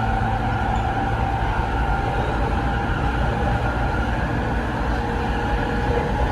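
Inside a Rinkai Line 70-000 series train running at steady speed: continuous wheel and rail rumble with a steady-pitched whine from its Mitsubishi IGBT-VVVF traction equipment. This set, Z3, is singled out as a car with an unusual running noise.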